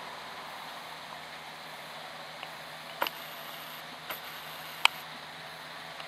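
John Deere 6320 tractor's diesel engine running steadily under load as it pulls a Kverneland four-furrow plough through the soil. Three sharp clicks come in the second half, the last the loudest.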